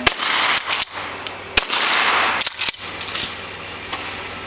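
Shotgun fired at an airborne skeet-style target: a sharp crack right at the start and another about a second and a half in, with a few smaller clicks and a rushing noise between.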